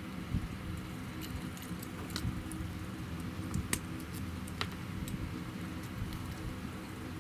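Scattered small clicks and taps from handling thin wire and tools, over the steady hum of a fan blowing on the work.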